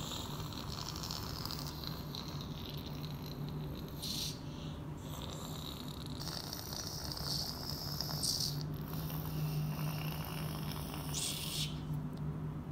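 A boy making jet-engine whooshing noises with his mouth while flying a toy brick-built jet: breathy hissing rushes that start and stop every second or two, over a low steady hum.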